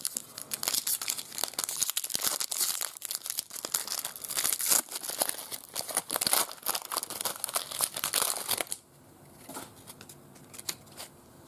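Foil wrapper of an Artbox Spider-Man FilmCardz trading-card pack crinkling and tearing as it is ripped open by hand. Dense crackling for about nine seconds, then only faint rustles near the end.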